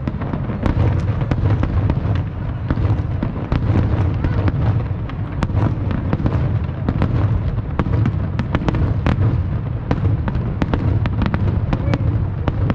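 Fireworks display going off without a break: a dense stream of sharp crackles and bangs over a steady low rumble.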